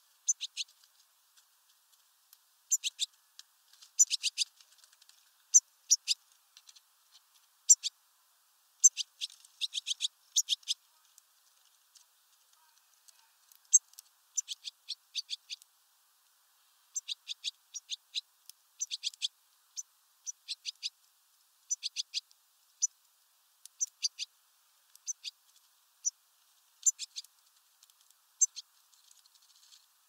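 European goldfinches at a sunflower-seed feeder: short, sharp, high ticks and chirps in quick irregular clusters of a few at a time, with brief pauses between.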